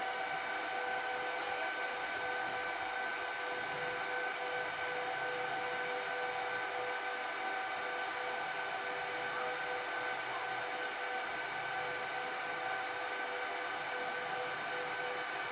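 HP ProLiant DL360p Gen8 1U server's cooling fans running steadily: an even whoosh with a steady whine of several tones.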